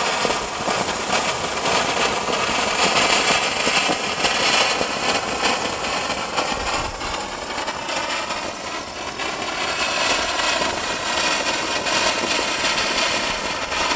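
Hand-held snow-spray stick firework burning: a steady, dense hiss of sparks with a fine crackle running through it.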